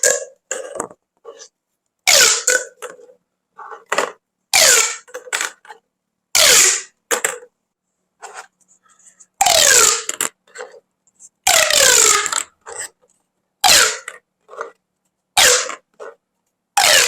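Pop tubes, corrugated plastic toy tubes, being sounded in a run of short loud bursts, roughly one every two seconds, many of them falling in pitch, with quiet gaps between.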